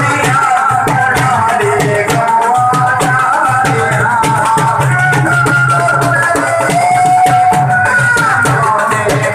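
Live Indian folk music: a wavering, sustained melody line over steady hand-drum beats, with a rattling shaker-like percussion on top.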